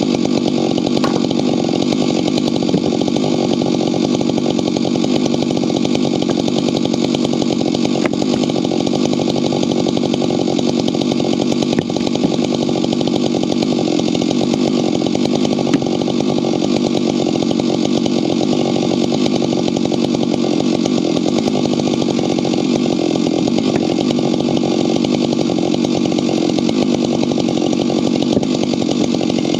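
Husqvarna chainsaw running steadily at an even, unchanging speed, cutting firewood.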